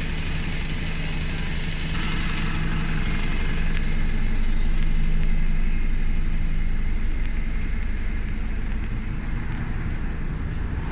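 City bus diesel engine running at idle, a steady low hum that swells a little in the middle.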